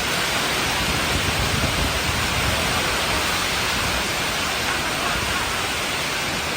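Heavy storm rain and wind, a steady loud rushing noise, with a stronger low rumble of wind about one to two and a half seconds in.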